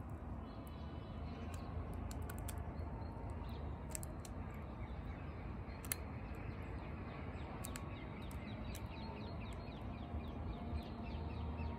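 Crow pecking food pellets from an open hand, its beak making scattered sharp clicks and taps over a steady low outdoor rumble, with a quick run of faint high ticks toward the end.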